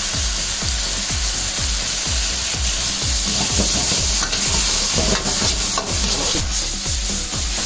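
Shredded vegetables and meat sizzling in a hot carbon-steel wok with soy and tomato sauce just poured in, with a steady hiss. From about three seconds in, a metal ladle stirs and tosses them, scraping against the wok.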